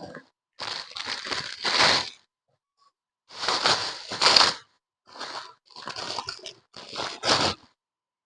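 Plastic clothing packets crinkling and rustling as garments are pulled out of them, in about six loud bursts with silent gaps between.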